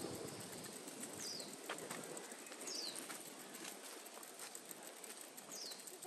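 Forest ambience with a bird giving a few short, high chirps that slide downward, about three in all, over a faint steady hiss and scattered light clicks.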